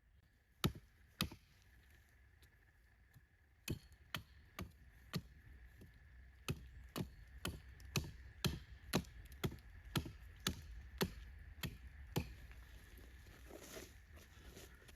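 Damp wooden logs being knocked into the ground with repeated sharp blows: two near the start, then a steady run of about two blows a second, stopping about three seconds before the end.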